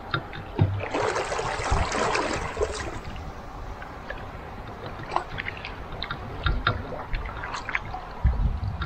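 Double-bladed paddle stroking through calm river water: a splashing stroke about a second in, then scattered drips falling off the blades and a few low thumps.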